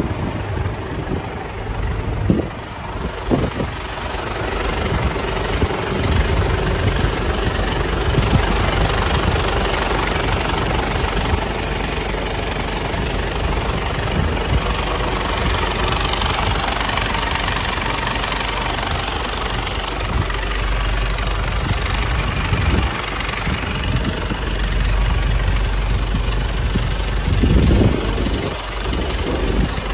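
Mitsubishi Fuso truck's diesel engine idling steadily, a continuous low rumble.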